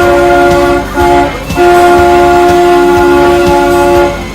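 Galloping Goose rail motorcar's horn sounding a chord of several steady notes: a long blast, a short one about a second in, then a long blast of about two and a half seconds.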